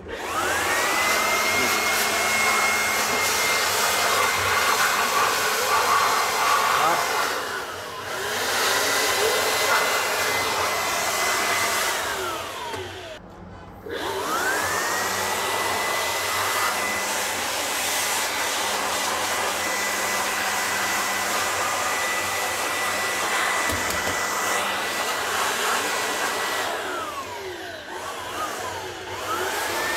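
Handheld electric air blower blowing dust out of an open desktop computer case, its motor whine and rush of air rising as it spins up and holding steady. It is switched off and back on three times, the whine falling away and climbing again each time: about 7 seconds in, around 12 to 14 seconds, and near the end.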